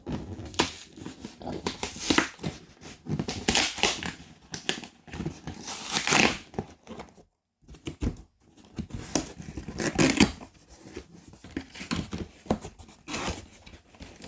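Packaging of a boxed Hot Wheels display case being torn and crinkled open by hand, in irregular rips and rustles with a short pause about seven seconds in.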